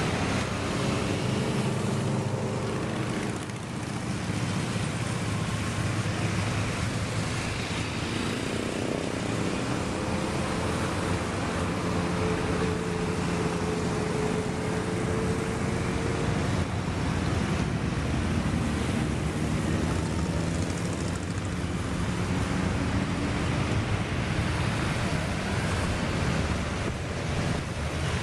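A long column of motorcycles riding past one after another, many engines running at once in a steady mass of engine noise from cruisers and sport bikes. It dips briefly about three and a half seconds in.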